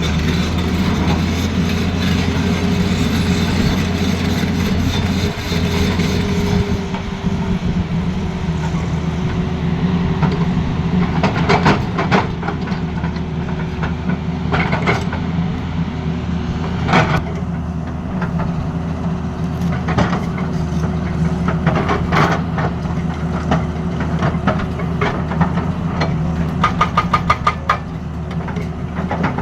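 Tata Hitachi excavator's diesel engine running steadily with a constant whine, with scattered sharp metal knocks and, near the end, a quick run of about eight knocks.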